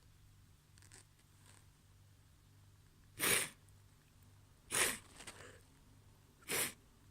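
Three wet, stifled sneezes, each a short sharp burst, coming about a second and a half apart after a few quiet seconds.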